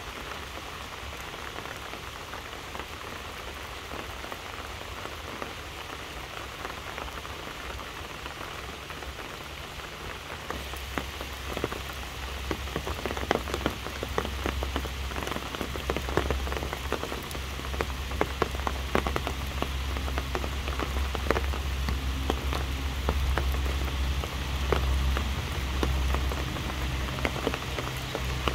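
Steady rain falling on leaves and grass under trees, an even hiss. About ten seconds in it becomes louder, with many separate drops ticking close by and a low rumble underneath.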